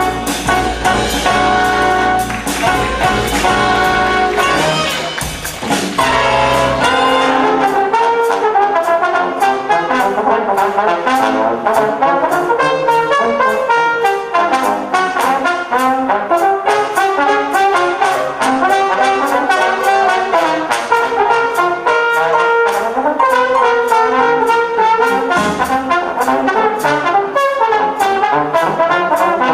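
Student jazz big band playing live. The full ensemble holds brass chords over the bass, and from about six seconds in two trombones carry the melody over drums keeping a steady beat on the cymbals.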